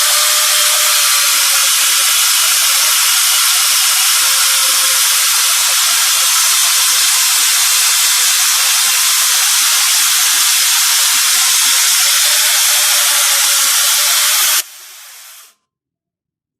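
Angle grinder fitted with a chainsaw attachment running at full speed: a loud, steady, hissing motor-and-chain noise with a steady whine, which breaks off abruptly near the end.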